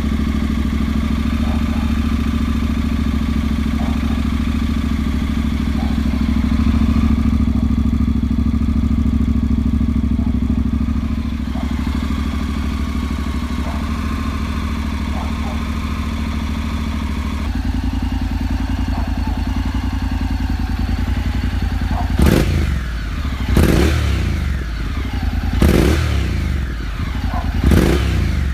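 Honda NC750X's parallel-twin engine idling steadily through its exhaust, then revved in four short throttle blips in the last few seconds.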